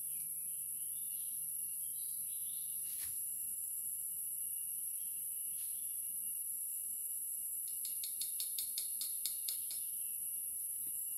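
Steady high-pitched drone of insects, with a rapid run of about a dozen clicks between about eight and ten seconds in.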